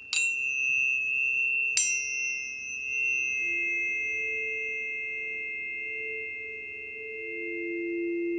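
Planetary tuning forks struck twice, the second strike almost two seconds after the first. They ring on as steady overlapping pure tones, a high ringing over a lower hum that slowly swells and pulses.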